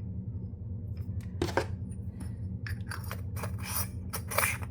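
Hands handling an opened dive flashlight and its 21700 batteries: a run of short clicks and scrapes of metal parts, more frequent in the second half, over a steady low hum.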